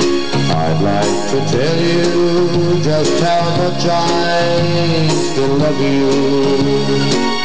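Electronic keyboard playing the instrumental break of a country ballad: a lead melody with pitch bends over held chords.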